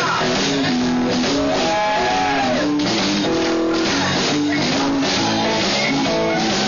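Live blues band playing a shuffle: a lead electric guitar plays sustained notes that bend up and down, over drums and a rhythm section.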